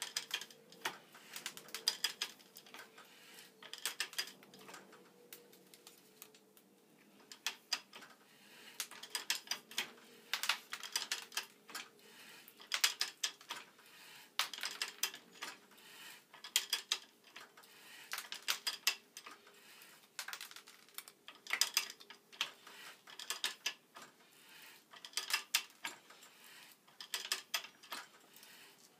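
Ridgid OO-R ratcheting hand pipe threader cutting threads on half-inch black iron pipe: the pawl clicks in quick runs each time the handle is swung back between cutting strokes, about every two seconds.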